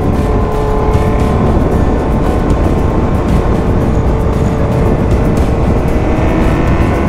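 Motorcycle cruising at about 80 to 90 km/h: a steady rush of wind noise over the microphone, with the engine running underneath at an even speed.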